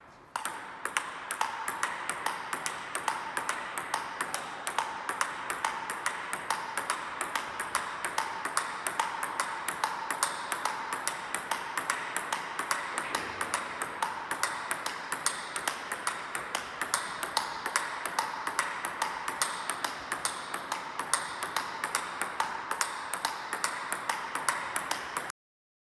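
Table tennis forehand drill: a regular run of sharp clicks from the ball striking the bat and bouncing on the table, several a second, over a steady hiss. It cuts off suddenly near the end.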